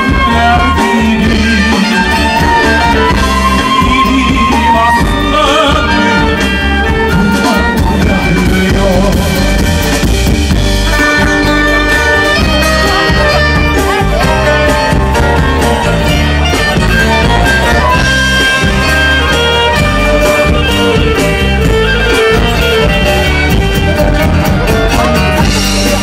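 A live band plays a passage of a song, a violin carrying the melody over a drum kit.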